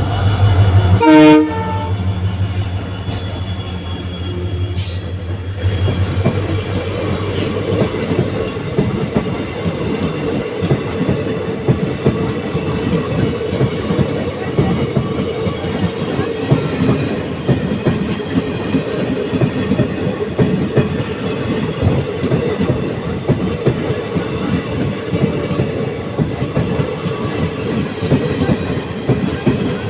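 WDP4D diesel locomotive's EMD two-stroke engine running as it passes, with one short, very loud horn blast about a second in. After about five seconds the engine hum drops away and the passenger coaches roll by with a steady, rapid clickety-clack of wheels over rail joints.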